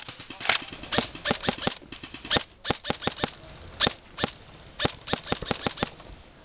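Airsoft guns firing: irregular sharp snapping shots, some single and some in quick runs of several.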